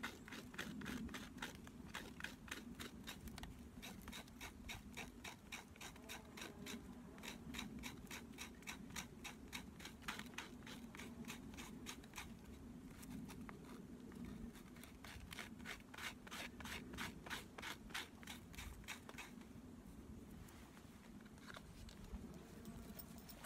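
A knife blade scraping wood in steady, rhythmic strokes, about four a second, with two brief pauses, stopping a few seconds before the end.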